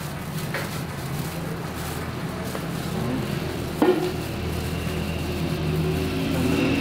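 Steady low hum and hiss of a busy fish shop, with a sharp knock about four seconds in and a fainter click near the start.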